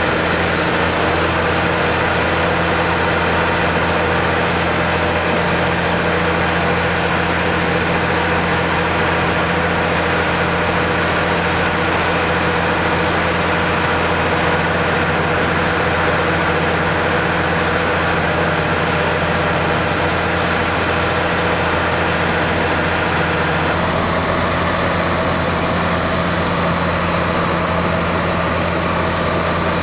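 Heavy diesel engine of harvest machinery running steadily at constant speed, with a slight change in its note about 24 seconds in.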